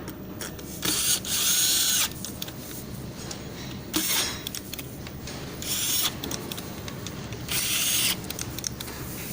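Power drill running in four short bursts, its whine rising and falling in pitch with each burst.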